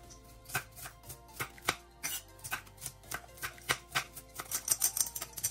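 Kitchen knife finely chopping onion on a marble board: irregular sharp knocks of the blade on the board, a few a second, coming faster near the end.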